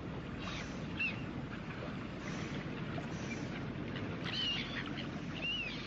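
Birds calling with a few short arching chirps, about a second in and again twice near the end, over a steady low outdoor rumble.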